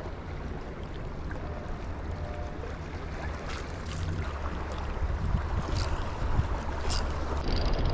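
Wind rumbling on the microphone over a steady wash of waves, with two sharp clicks near the end.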